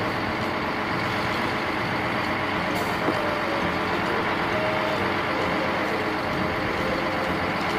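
Mercedes-Benz concrete mixer truck's diesel engine running steadily.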